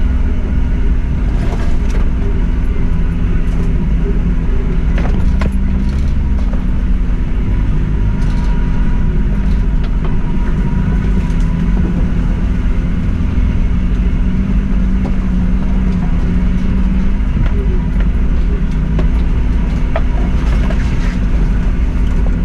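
Suzuki Jimny driving slowly over a rough off-road lane, its engine running steadily, with scattered sharp clicks and knocks.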